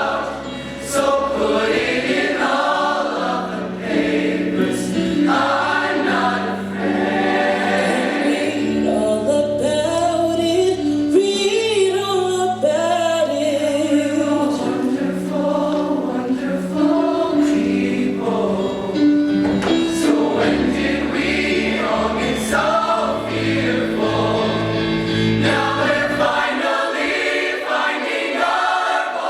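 High-school show choir singing in full harmony with live instrumental accompaniment, mixed voices over a sustained bass line. Near the end the bass drops out and the voices carry on alone.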